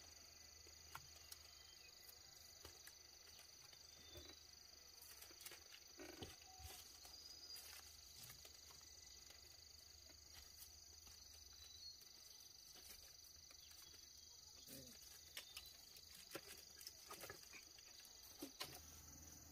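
Faint, steady, high insect chirring, with scattered soft clicks and light knocks.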